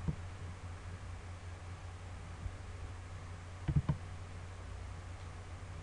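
Computer mouse button clicks: one click at the start as the Run Section button is pressed, then a quick pair of clicks almost four seconds in, over a steady low hum.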